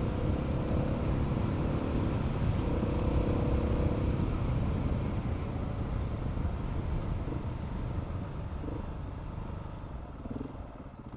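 Adventure motorcycle riding along a dirt track: the engine running steadily under way with road noise, growing quieter over the last few seconds as the bike eases off.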